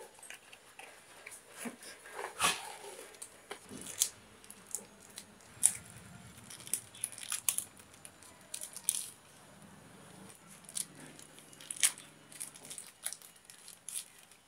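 Paper and plastic packaging wrap being handled and pulled open by hand: irregular crinkles and rustles with small clicks and taps of boxed parts, a sharp crinkle about two and a half seconds in.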